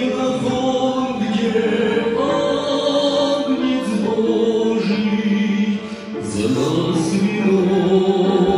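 A hymn being sung, with held notes moving from pitch to pitch and a short break between phrases about six seconds in.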